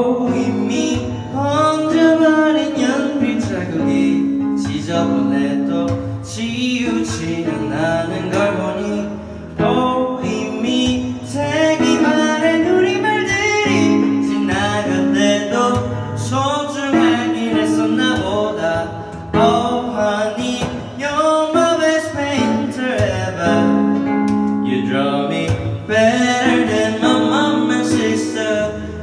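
A singer performing a song live to acoustic guitar accompaniment.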